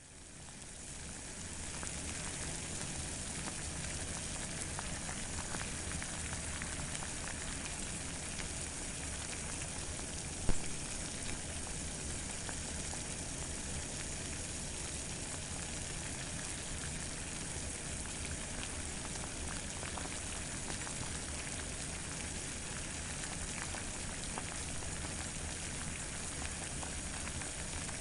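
Water boiling: a steady bubbling hiss that swells up over the first couple of seconds, with one sharp pop about ten seconds in.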